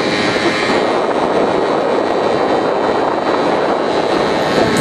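Motor scooter riding at speed: a steady rush of wind on the microphone with the scooter engine's drone underneath.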